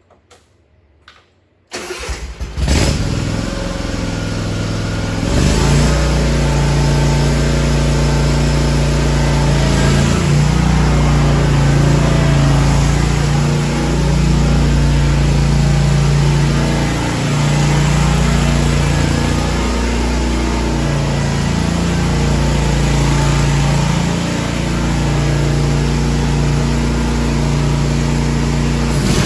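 Kawasaki FR730V V-twin engine on a Hustler Raptor XD 60 zero-turn mower cranking and starting about two seconds in, then running. It gets louder about five seconds in and runs steadily after that, with a few brief dips and shifts in pitch, which shows it starts readily and runs smoothly.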